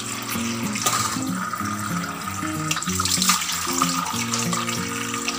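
Water splashing and sloshing as cut cassava pieces are washed and stirred by hand in a bowl, with small knocks of the pieces, over background music with a steady melody.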